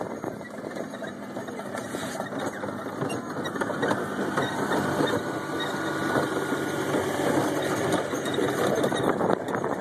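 Small garden tractor engine running steadily as it tows a train of barrel cars, with the cars rattling and clattering as they roll over rough grass.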